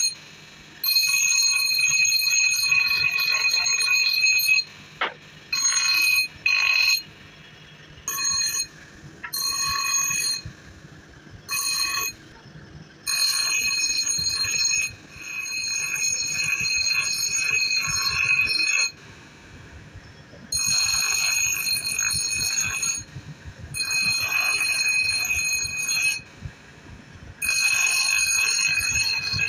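Steel adze blade ground on a bench grinder's abrasive wheel: a high ringing screech each time the blade is pressed to the wheel. It comes in about ten bursts of one to four seconds, with much quieter gaps between them as the blade is lifted off.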